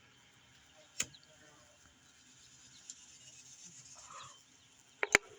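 Mostly quiet background with a sharp click about a second in, a soft rustling hiss that builds and fades, and two quick sharp clicks near the end.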